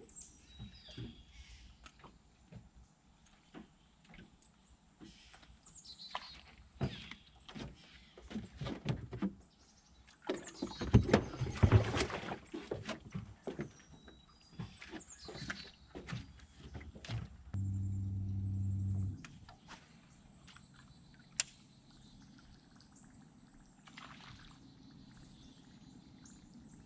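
Knocks and clatter of handling in a small boat, with a loud noisy burst of about two seconds near the middle. Later a small electric motor hums steadily for about a second and a half.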